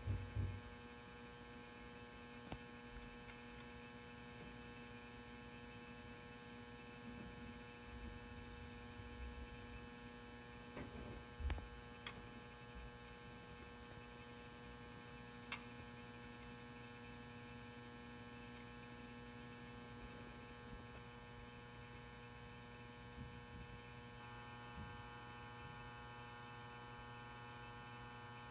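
Steady electrical hum from a 400 W metal halide lamp and its M59 magnetic ballast while the lamp is still warming up, with a few faint knocks about halfway through.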